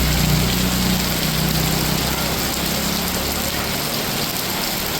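Heavy, torrential rain falling, a steady hiss. A motor vehicle's engine hums underneath for the first few seconds, then fades out.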